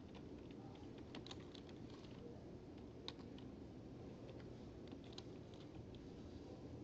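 Faint typing on a computer keyboard: irregular, scattered keystrokes that thin out near the end, over a low steady room hum.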